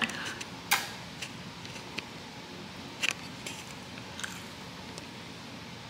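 Scattered faint, crisp clicks over quiet room tone: a person biting into and chewing a piece of breaded popcorn chicken.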